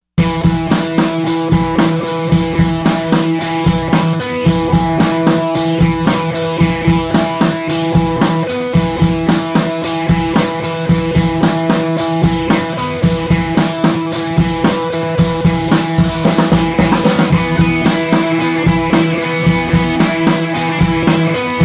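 Background music with a steady drum-kit beat over sustained instrumental tones, with a brief swell about three-quarters of the way through.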